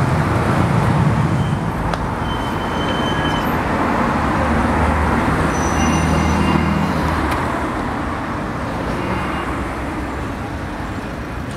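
Road traffic on a city street: the steady rumble of passing car and bus engines with tyre noise, swelling about six seconds in and easing off near the end.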